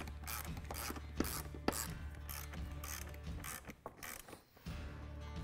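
Hand ratchet with a T45 Torx bit backing out motorcycle subframe bolts: rhythmic ratcheting strokes about three a second, with a couple of sharper clicks, pausing briefly near the end.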